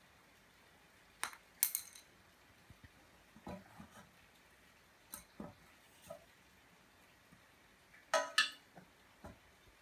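Light clinks and knocks as a pencil and small hands strike a stool's metal frame and the wooden floor: two bright clinks about a second in, a few softer knocks in the middle, and a louder cluster of clinks near the end.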